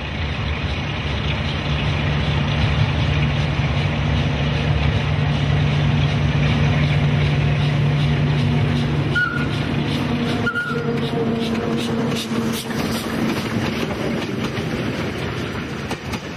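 A diesel locomotive's engine runs steadily under load as it approaches and passes, towing a train. About halfway through there are two short high squeals. Then the engine note fades and the rolling clatter of the passing coaches' wheels on the rails takes over.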